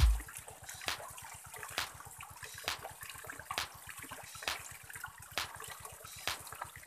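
Water trickling and splashing through a bamboo tube water feature, with a sharp click repeating a little under once a second.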